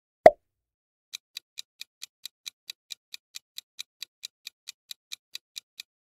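A single short pop sound effect, then a countdown timer's clock-tick sound effect ticking evenly at about four to five ticks a second. The ticks stop shortly before the end.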